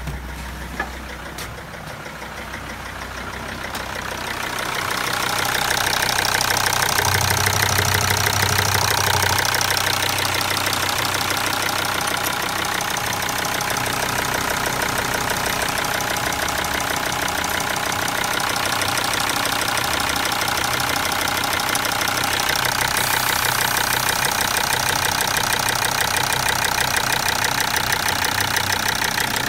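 Mercedes OM612 2.7 CDI five-cylinder diesel engine idling steadily. It grows louder a few seconds in as the microphone moves from the cabin to the open engine bay.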